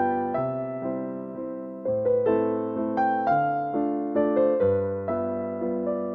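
Gentle background piano music: a melody of struck notes over chords, each note fading after it is struck.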